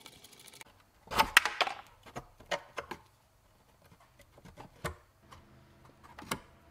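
Clicks and clatter of a screwdriver and metal clip nuts against a hard plastic scooter fender as the clips are worked off. There is a short burst of rattling about a second in, then a few single sharp clicks.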